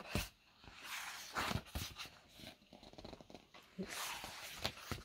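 Faint rustling and soft knocks of a hardback picture book's paper pages being handled and turned, with a stretch of rustle about a second in and another near the end.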